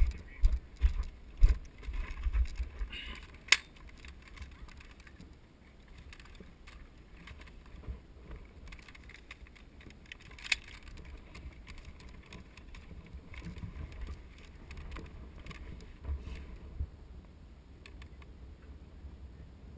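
Footsteps and the rattle and jingle of carried gear as an airsoft player moves, with heavy thumps on the microphone for the first few seconds. Two single sharp clicks stand out, one a few seconds in and one about halfway through.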